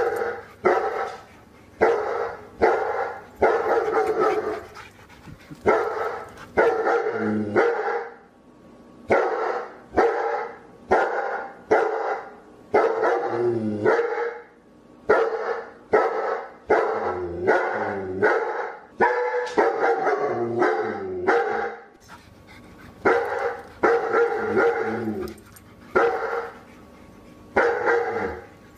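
A dog barking over and over, about once a second, in runs of short barks separated by brief pauses.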